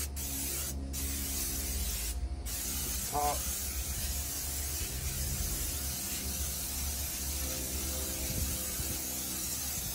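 Aerosol can of Pam canola oil cooking spray hissing in long continuous sprays, with two brief breaks in the first few seconds, as oil is coated over the steel interior of a new offset smoker to season it.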